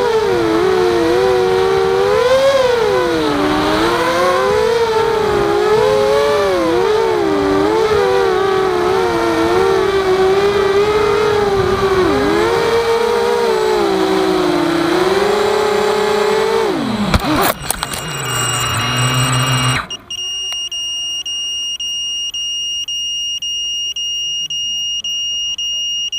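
Walkera Rodeo racing quadcopter's electric motors whining, the pitch rising and falling with throttle in flight. About 17 seconds in the whine cuts off with a short clatter as the quad crashes and comes to rest upside down. A few seconds later a steady high beeping starts, about two beeps a second.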